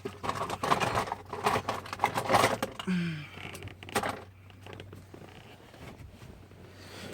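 Quick clicking, scraping and rattling of small metal hand tools and parts being worked at a steering column for about four seconds, then fainter handling noise.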